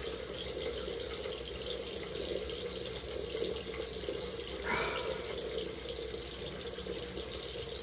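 Bathroom sink tap running steadily into the basin.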